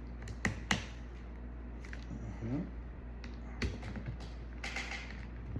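A few sharp small clicks and taps from laptop parts and tools being handled during reassembly, with a short scraping rustle near the end, over a steady low hum.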